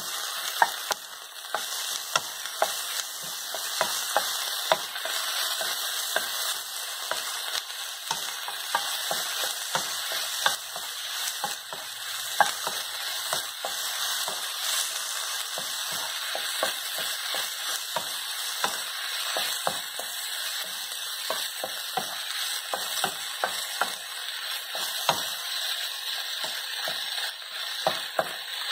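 Marinated chicken pieces sizzling in a nonstick frying pan, a steady sizzle that is not that loud because the pan is on ordinary stove heat rather than high wok heat. The chicken is stirred and turned with a spatula, which makes frequent clicks and scrapes against the pan.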